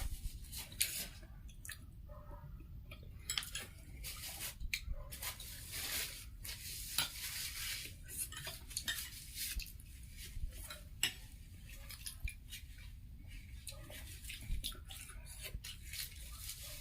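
Irregular light clinks and scrapes of eating utensils against plates and dishes during a meal.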